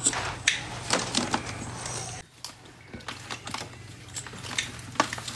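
Handling noise from a phone being moved and set in place: scattered taps and rustles close to its microphone, with a low hum that drops away about two seconds in.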